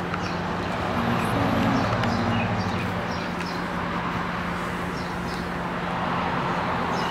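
Steady low rumble and hum of a car cabin, with French bulldog puppies shuffling in a plastic tub and giving faint, short, high squeaks now and then.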